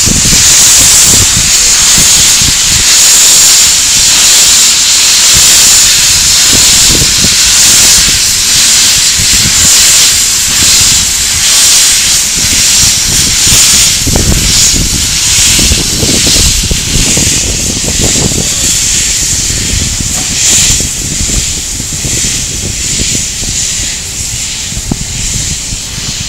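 Narrow-gauge 2-10-2T steam tank locomotive blowing steam from its open cylinder drain cocks: a loud, steady hiss that slowly weakens toward the end, with low rumbling mixed in around the middle.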